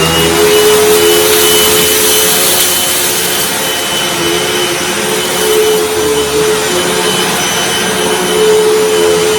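Hoover WindTunnel T Series bagged upright vacuum cleaner running steadily at full speed after being switched on. Its motor whine levels off in the first moment, and a steady rushing of air sounds under it.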